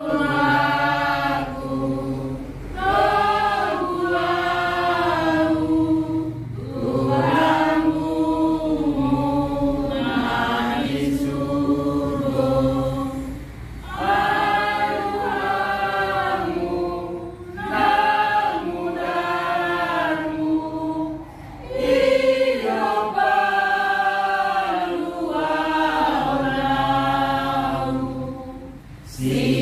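A small group of mourners, mostly women, singing a hymn together without accompaniment, in long phrases with short breaks for breath between them.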